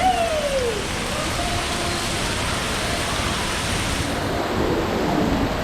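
Steady rush of spraying and splashing water, as from a play-area fountain or sprayers. A short falling cry is heard at the start.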